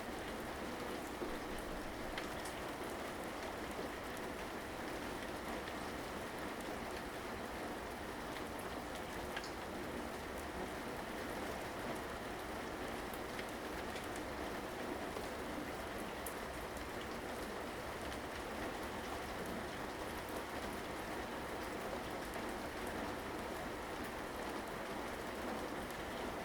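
Steady rainfall, with drops pattering and ticking on surfaces.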